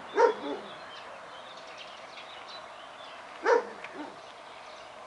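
A dog barking: a loud bark about a quarter of a second in and another about three and a half seconds in, each followed by a softer bark.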